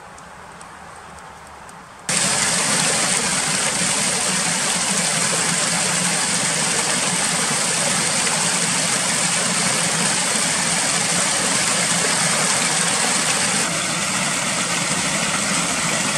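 Stream water rushing under and around ice, a loud steady rush that starts abruptly about two seconds in.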